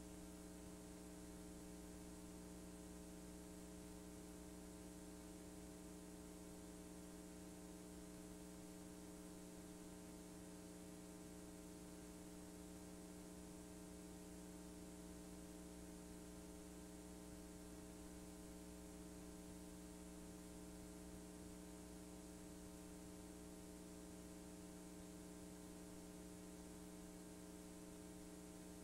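Near silence on a blank stretch of VHS-C tape: a faint, steady electrical hum with hiss.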